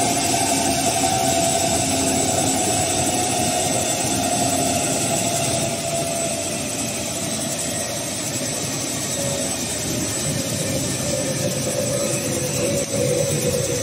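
HS1300 plastic film slitter rewinder running, its rolls of slit film winding on the rewind shafts: a steady machine noise with a whine that slowly falls in pitch.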